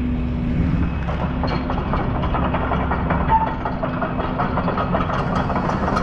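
Heavy site machinery engine idling steadily, with light knocks and scrapes as log sections are handled.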